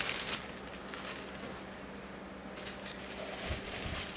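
Plastic bubble wrap and a plastic bag rustling and crinkling in the hands as a ceramic mug is unwrapped, with a sharp crackle right at the start. The rustling picks up again after about two and a half seconds.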